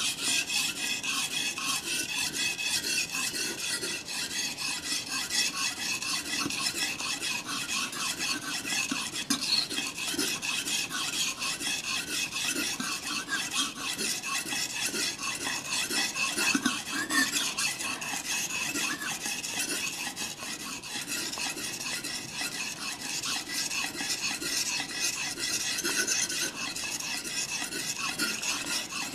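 Kitchen knife blade stroked back and forth over a wet whetstone in steady repeated strokes, a continuous gritty rasping, as the dull edge is sharpened.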